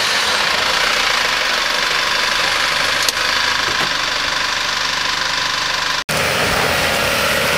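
4WD ute engines running at low speed on the track, a steady engine rumble. A brief dropout about six seconds in, after which the sound is fuller in the low end.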